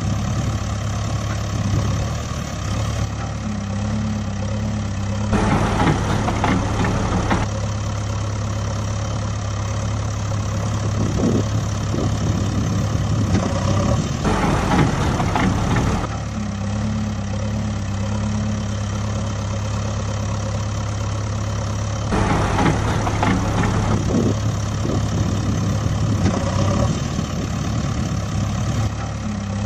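Engine sound effect laid over a toy backhoe loader: a motor running steadily at idle, with a louder, rougher stretch of about two seconds roughly every eight seconds as the recording loops.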